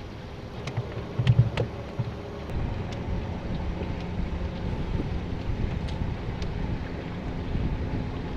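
Wind rumbling on the microphone. There is a cluster of dull thumps just over a second in and a few light clicks. The rumble turns steadier and a little louder from about two and a half seconds in.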